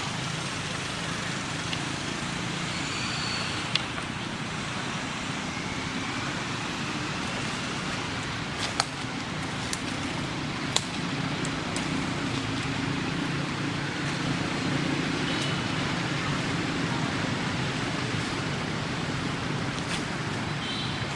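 Steady outdoor background noise, a low rumble with hiss, broken by a few sharp clicks about 4, 9 and 11 seconds in.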